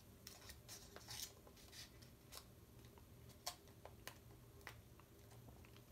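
Faint, irregular rustles and small ticks of folded paper being handled as an origami module is slotted into place.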